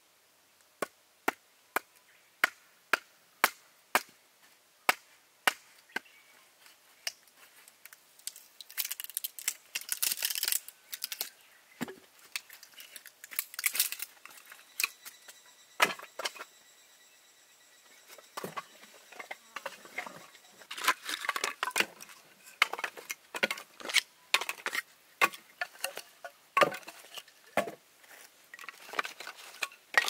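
Firewood being split into kindling: a run of sharp knocks on wood about twice a second, then cracking and splintering with more irregular knocks.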